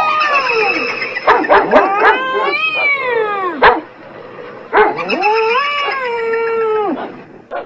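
A dog and a cat calling back and forth: long wavering howls and yowls that rise and fall in pitch, with short sharp yips between them.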